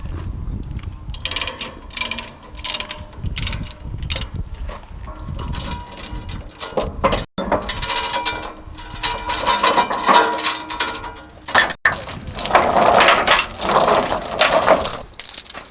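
Load binders being released and tie-down chains taken off a bulldozer: repeated metallic ratcheting clicks and clanks of chain. The sound drops out briefly twice.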